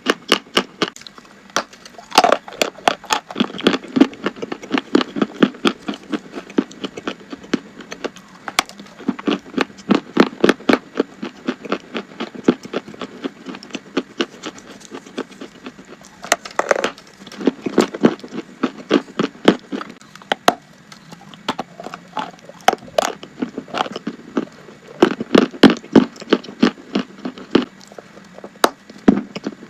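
Close-up crunching of chalk being bitten and chewed: runs of sharp, crisp cracks several times a second, with brief pauses between bites.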